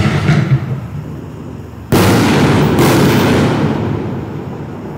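Black Cat Patriot 6-inch canister shells (60-gram consumer aerial shells) going off: the tail of one boom fades early, then a sudden loud boom about two seconds in and a second sharp bang under a second later, each echoing away.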